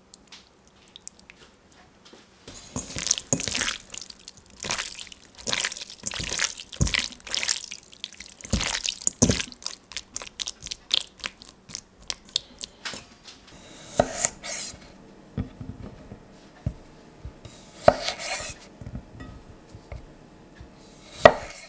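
A hand squishing and mixing oil-coated marinated beef strips in a stainless steel bowl: a rapid run of wet squelching strokes. In the second half come a few single knocks, the last near the end as baby potatoes are set down on a wooden board.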